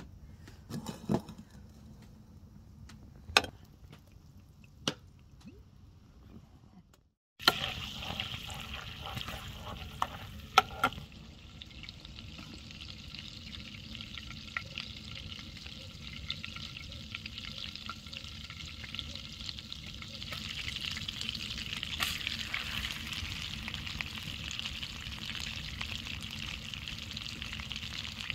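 Butter sizzling and foaming in a non-stick frying pan as cooked pumpkin is spooned in. The first several seconds are quieter, with a few clicks of a metal spoon against the pan. A steady frying sizzle then starts abruptly about seven seconds in, with a couple of knocks, and grows louder in the second half.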